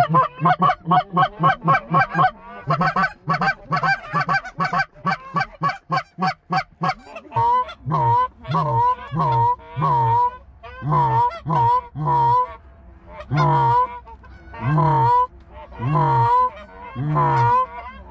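Canada goose call blown by a hunter: a fast run of short clucks, about four a second, for the first seven seconds or so. It then slows to evenly spaced honks that break from a low note to a high one, about one and a half a second.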